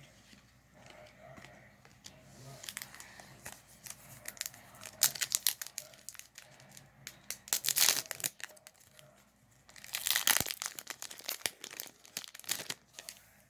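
A trading card booster pack wrapper crinkling and being torn open, in several bursts of rustling and tearing.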